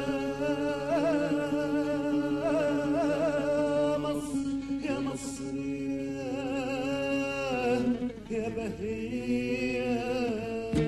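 Song with a singer holding long, wavering notes and no clear words, as a vocalise.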